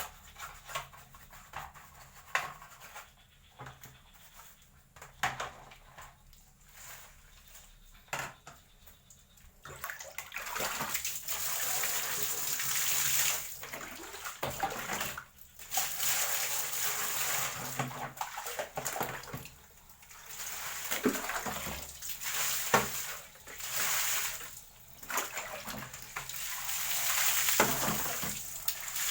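Water running and splashing in on-and-off bursts, starting about ten seconds in; before that only scattered clicks and knocks.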